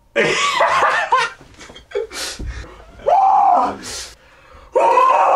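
Young men laughing and yelling in three loud bursts, with no clear words.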